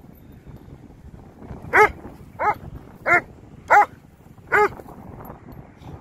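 A dog barking five times in a quick series, about two seconds in, roughly one bark every two-thirds of a second.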